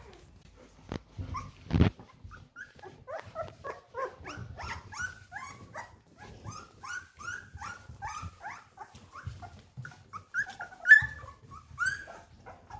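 Young Golden Retriever puppies whining and yelping in a long string of short, high calls, about two or three a second. Two knocks come about a second in.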